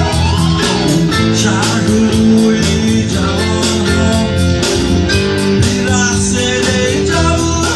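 Music played by a band: guitar over sustained bass notes and a steady beat.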